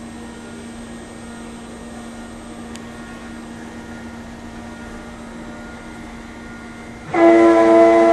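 CNC router running with a steady hum while milling a large styrofoam block; about seven seconds in, a much louder, steady droning tone with several overtones starts suddenly, the strange monster-like noise of the router eating into the foam.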